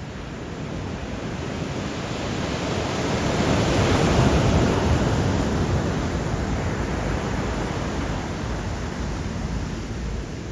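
Stormy Black Sea surf, a wave breaking and rushing up the shore. The rush swells to a peak about four seconds in, then slowly draws back.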